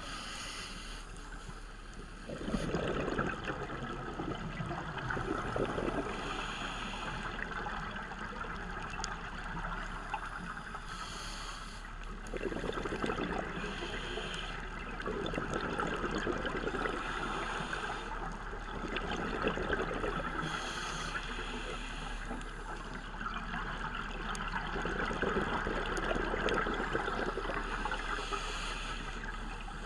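Underwater sound of a scuba diver breathing through a regulator: a short hiss on each inhale and a gurgling rush of exhaled bubbles, repeating every few seconds.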